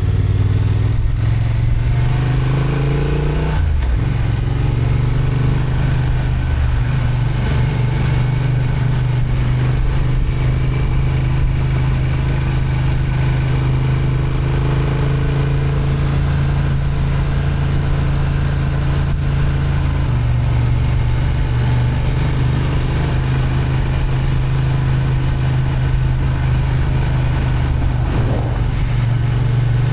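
Honda XL750 Transalp's 755 cc parallel-twin engine (35 kW restricted version) pulling on a climb. The revs climb and then drop sharply about three and a half seconds in, then hold steady, with a brief rise again near the end.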